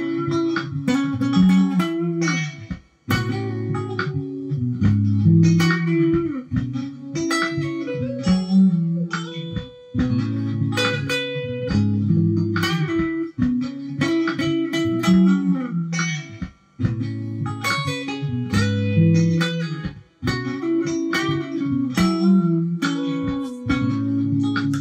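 Electric guitar playing a soul-style lead, picked notes and short phrases over a repeating low bass line, with a few brief breaks in the playing.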